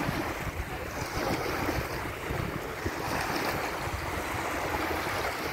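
Small waves washing in and out on a sandy beach, a steady wash of surf, with wind rumbling on the phone's microphone.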